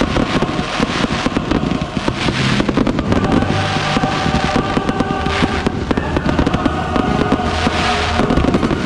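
A dense, continuous barrage of aerial firework bursts and crackling shells, many bangs a second with no let-up. Music plays underneath.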